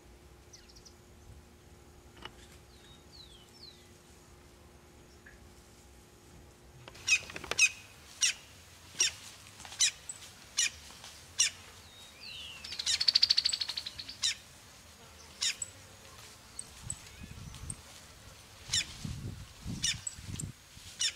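Crimson-crested woodpecker pecking at wood: sharp single knocks about every three-quarters of a second from about seven seconds in, then a short fast rattle. Faint small bird chirps come before the knocks start.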